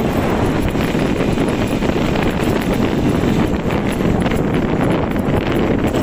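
Beker Cross 150cc motorcycle riding along a dirt track, its engine running steadily under heavy wind buffeting on the microphone.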